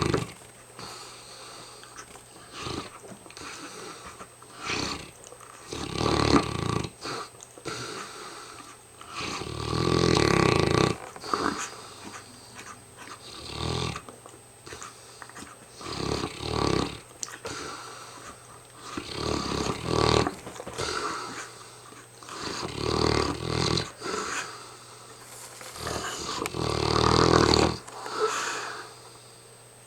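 Mastiff snoring, with a loud, rasping snore every three or four seconds and quieter breathing in between.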